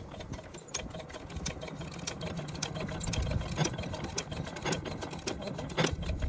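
Stationary diesel water-pump engine with twin flywheels being turned over by hand crank: a mechanical clatter of uneven clicks over a low rumble. It grows louder about three seconds in.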